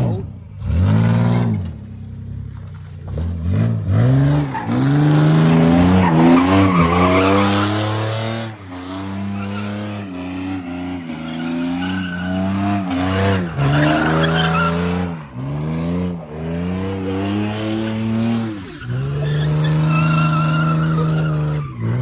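1999 Ford Ranger's 3.0 V6 revving hard near redline, its pitch climbing and dropping again and again, while the rear tyres, locked together by a welded differential, squeal and skid in long stretches.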